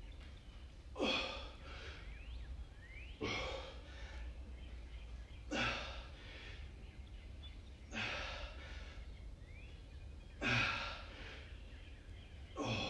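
A man breathing out hard with each exercise rep: six short, forceful exhales at an even pace, about one every two and a half seconds.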